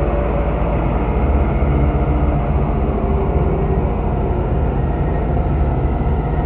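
Horror ambience sound effect of tormented souls: faint, wavering wailing voices over a deep, steady rumble.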